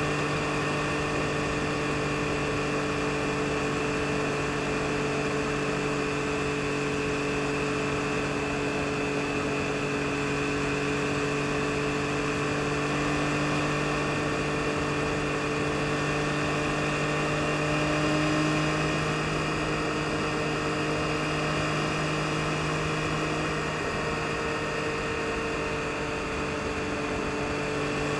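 2022 Yamaha MT-09 SP's inline-three engine running at a steady, nearly constant pitch while cruising, over a haze of wind and road noise. It swells briefly in loudness about two-thirds of the way through.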